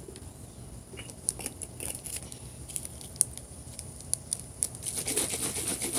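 A plastic drink bottle being handled, with scattered sharp clicks and crackles that come more often near the end.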